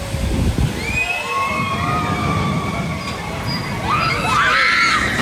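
Gerstlauer junior roller coaster train rumbling along its steel track as it passes. Long high-pitched sliding tones sound over the rumble, with a louder flurry of them near the end.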